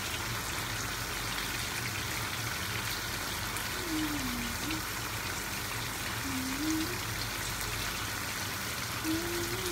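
Kingfish curry simmering in a pan: a steady bubbling hiss from the thick gravy.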